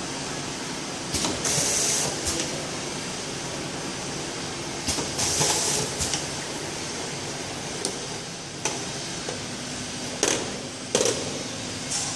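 Automatic sticker labeling machine running: a steady mechanical noise of conveyor and drive, with two hissing bursts of about a second each in the first half and several sharp clicks and knocks in the second half.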